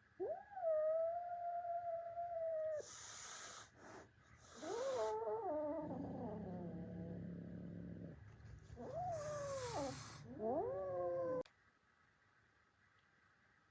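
Cats fighting: long drawn-out yowls that bend up and down in pitch, hisses in between and a low growl in the middle, all stopping suddenly near the end.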